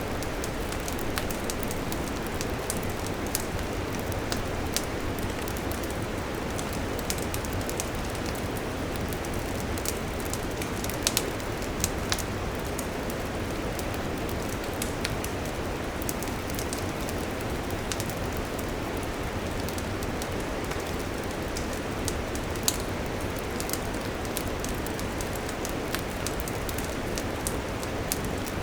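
Wood campfire burning: a steady hiss with many scattered crackles and pops, a few of them louder, about eleven and twelve seconds in and again near twenty-three seconds.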